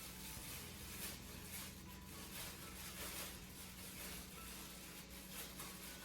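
Thin plastic refill film of a Litter Genie pail rustling and crinkling as it is handled and knotted, in faint, irregular crinkles over a low steady hum.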